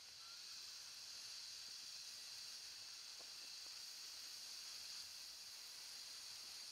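Faint steady high hiss while riding an electric scooter along a paved woodland path: rolling and wind noise, growing a little louder in the first second.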